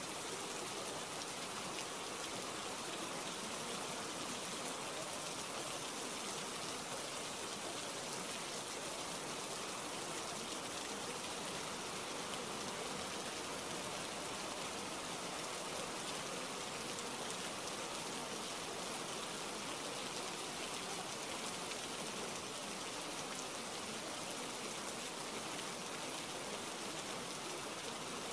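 Steady rain, an even hiss that does not rise, fall or break.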